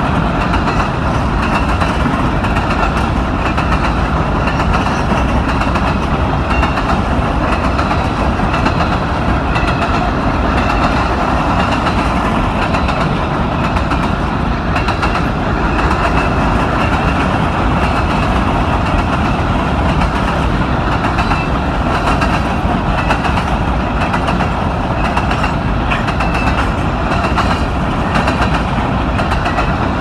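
Loaded freight train of CSX coal cars rolling past, a loud, steady rumble and clatter of steel wheels on the rails.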